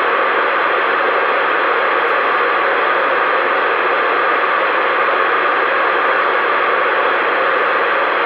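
Loud, steady radio static hiss with no voice on it, between stretches of radio-carried speech.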